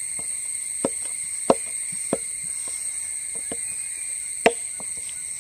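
Maida dough being mixed by hand in a bowl: irregular light taps and slaps, with a few sharper ones.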